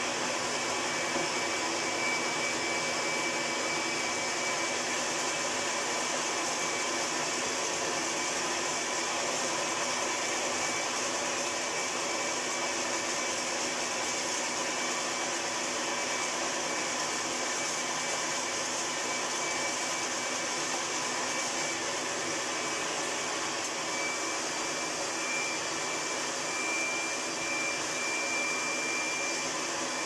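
1980 Hoover Senior Ranger U4014 upright vacuum cleaner running steadily, drawing through its hose and floor tool. A thin high whistle sits over the motor noise and gets stronger near the end.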